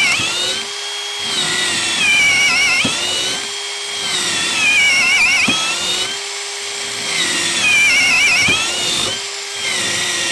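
Ryobi P251 brushless cordless hammer drill boring through a 4x4 wood post with a long spiral wood bit, under continuous load. The motor whine sags and recovers over and over, about every two and a half seconds, as the bit bites and clears.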